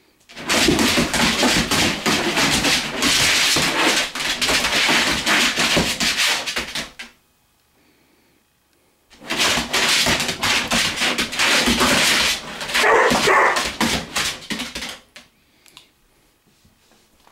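English springer spaniel barking excitedly at a laser-pointer dot, in two long loud bouts of about six seconds each with a pause of about two seconds between.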